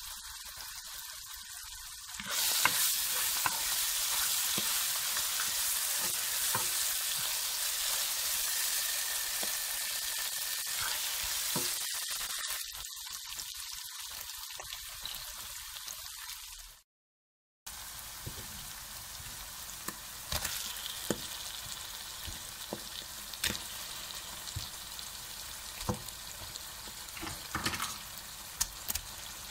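Onion-tomato masala frying in oil in a wok, sizzling loudly for about ten seconds, then more quietly with scattered clicks and scrapes of a spoon stirring. It cuts out briefly about halfway through.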